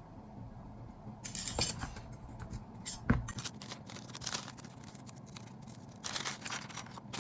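Small aluminum roof-rack parts being handled and worked by hand on a workbench: a few short scrapes and clicks, with a dull knock about three seconds in.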